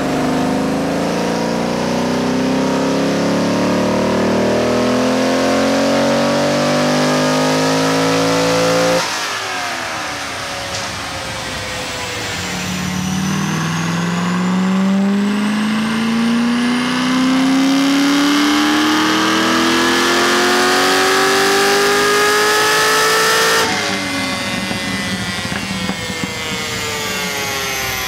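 A C6 Corvette Z06's 7.0-litre LS7 V8, fitted with an aftermarket heads-and-cam package, making wide-open-throttle dyno pulls. The engine note climbs steadily in pitch, cuts off abruptly about nine seconds in, and falls away as the engine winds down. A second long pull rises from about twelve seconds in and cuts off again shortly before the end, followed by another falling wind-down.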